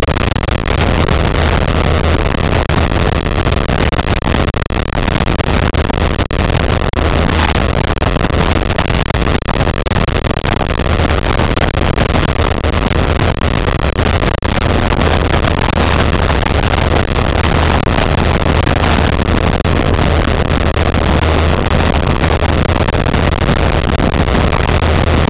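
Pontoon boat's motor running steadily while the boat is underway: a steady low hum under an even rushing noise.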